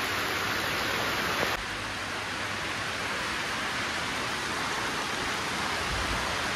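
Heavy rain falling steadily as a dense, even hiss. About a second and a half in, it drops a little in level.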